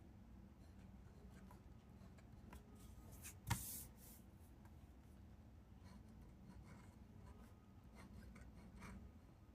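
A hard-tipped pen writing on paper in semi-cursive hand: faint, short scratching strokes, with one sharp tap about three and a half seconds in.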